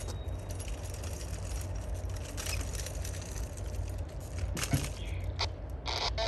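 Distant diesel freight locomotives running at low speed, a steady low rumble. A knock sounds about three-quarters of the way through, and a short rustling noise comes near the end.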